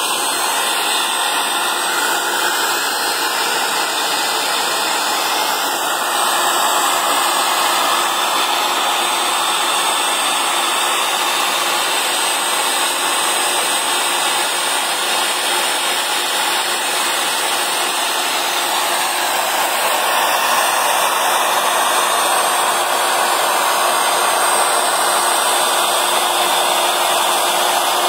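Industrial machine running with a steady, even whir and a faint high tone.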